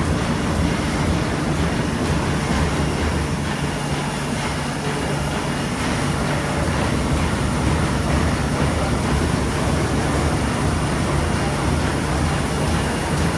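Meccanotecnica Aster 180 thread book-sewing machine running steadily, a continuous mechanical din and low hum from its sewing and sheet-feeding mechanism.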